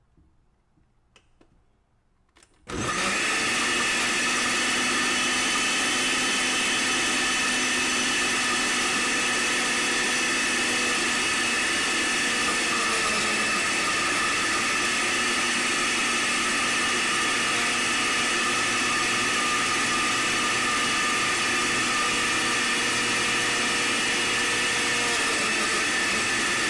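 Oster countertop blender switched on about three seconds in, running at a steady speed as it purees garlic, onion and a little water, and cutting off at the end.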